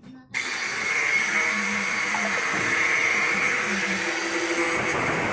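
Angle grinder with a cutting disc switched on just after the start and then running steadily at speed, a continuous high whine with hiss over it.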